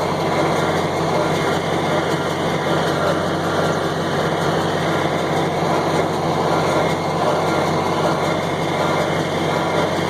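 John Deere 4020 tractor's six-cylinder engine running steadily under load while the John Deere 327 square baler works behind it.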